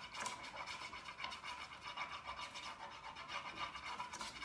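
Coloured pencil scratching on paper as the sky is coloured in with quick back-and-forth strokes, a continuous rasp made of many short strokes.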